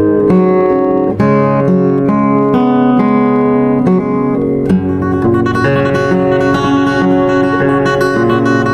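Kama K4114C solid-top 41-inch acoustic guitar being played: plucked notes and strummed chords ringing out in a continuous passage.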